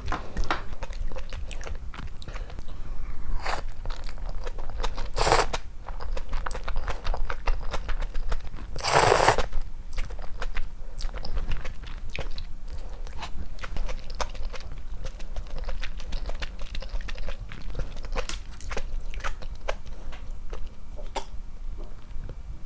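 Close-miked eating: a person chewing and biting food, a dense run of small crunchy, wet clicks, with two louder bursts about five and nine seconds in.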